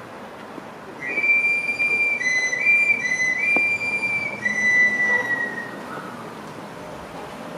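A street knife sharpener's whistle, the small panpipe that a Mexican afilador blows to announce himself. Starting about a second in, it plays a run of high, steady notes that step back and forth between two pitches for about five seconds, the last note sliding slightly down.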